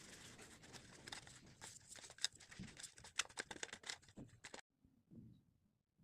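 Faint, irregular clicks and crackles of small handling sounds over a light hiss, cutting off suddenly about four and a half seconds in.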